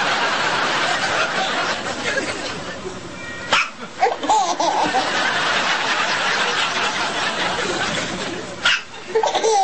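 Laughter, breathy and continuous, with short voiced bits, over a baby's hiccups. Two sudden sharp hiccups cut in, about three and a half seconds in and again near the end.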